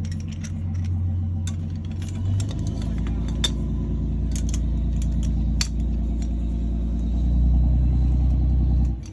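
A steady low mechanical hum that gets a little louder about two seconds in and again near the end, then cuts off suddenly. Light metallic clinks and rattles sound over it as oil filter parts and tools are handled.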